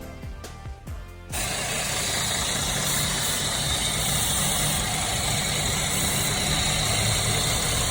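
Music fading out, cut off about a second in by a Mercedes C300's engine idling steadily under a loud even hiss. The engine still has an intake vacuum leak.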